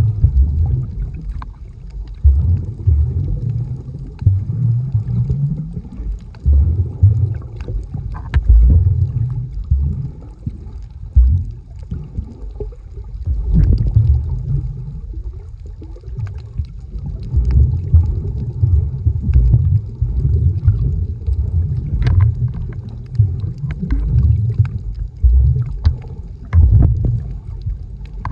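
Muffled, irregular low rumbling and sloshing of water moving around an underwater camera as the snorkeler swims over the seabed, with a few faint clicks.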